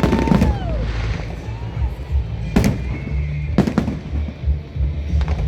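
Fireworks display: several sharp bangs spread through, with whistling shells gliding up and down in pitch near the start, over music playing in the background.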